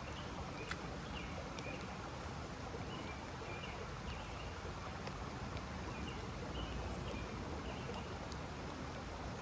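Outdoor ambience in light rain: a steady hiss with a low rumble on the microphone. Over it a small bird chirps repeatedly in short high notes, with a few sharp ticks.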